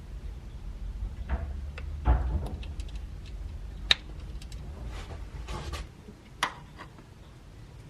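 Scattered light clicks, taps and short knocks of small car parts and tools being handled, the sharpest about two, four and six and a half seconds in, over a low rumble that drops away near the end.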